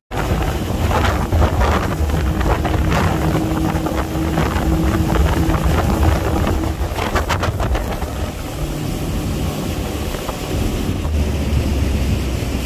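Motorboat running under way on the river, a steady motor drone mixed with loud wind buffeting the microphone.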